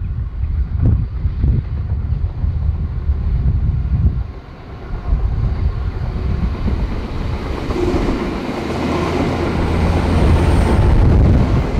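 LNER Azuma bi-mode express, running on its diesel engines, passing directly beneath: a rumble of engines and wheels on rail that builds from about halfway in and is loudest near the end. Wind buffets the microphone in the first few seconds.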